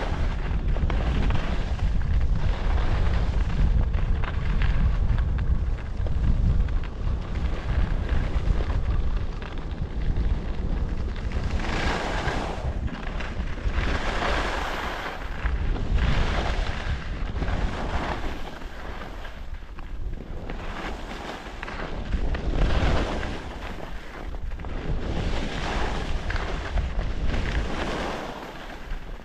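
Wind buffeting a moving camera's microphone during a downhill ski run, a steady low rumble, with repeated swells of skis scraping and hissing over the snow through the turns.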